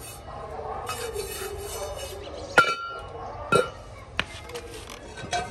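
Hand brush scrubbing a freshly cast brass hookah base, a steady scratchy rasp, then two sharp metallic clinks about a second apart in which the brass rings briefly, followed by a couple of lighter clicks.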